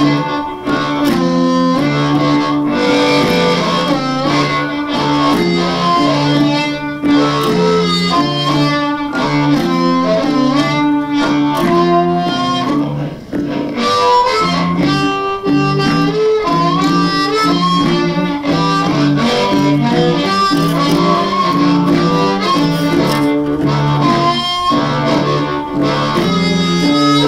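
Chicago-style blues band instrumental: a harmonica, a G harp played in D, carries a lead line with bent, gliding notes over a backing band with a repeating bass line and drums.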